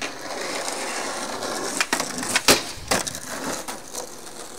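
Skateboard wheels rolling on rough asphalt, then several sharp clacks of the wooden board against the ground around the middle, one much louder than the rest, before the rolling settles down again.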